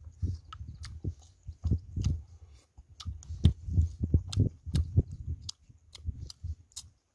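A person chewing roasted chicken with the mouth open: irregular wet smacks and crunchy clicks, about two or three a second, over low thumps.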